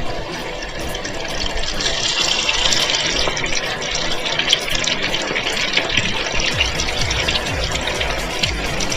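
Flour-coated chicken pieces deep-frying in a deep pot of hot oil: a dense sizzle and crackle of bubbling oil that grows stronger about two seconds in.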